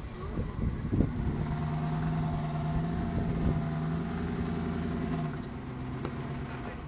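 Lifted Jeep Cherokee's engine running steadily under load as it crawls up a rock ledge, its pitch dropping a little past five seconds in. A sharp knock about a second in.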